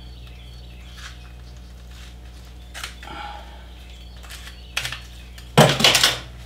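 Handling noises as aged duct tape is worked off torch hoses with scissors: scattered small clicks and rustles, then a louder burst of rustling and scraping near the end, over a steady low hum.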